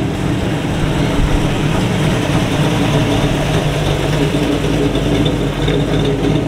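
Engine of a street-rodded late-1930s Chevrolet coupe with dual exhaust, running steadily as the car rolls slowly past at low speed.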